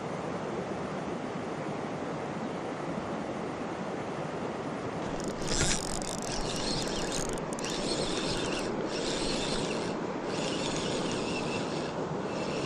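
Spinning fishing reel being cranked to retrieve the line, its gears whirring in runs broken by short pauses, after a sudden swish of a cast about five and a half seconds in. A steady rush of water runs underneath.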